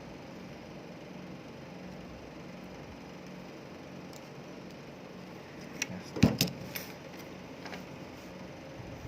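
A quick cluster of sharp clicks and light clatters about six seconds in, small parts or tools being handled during a portable fan repair, over a steady low hum.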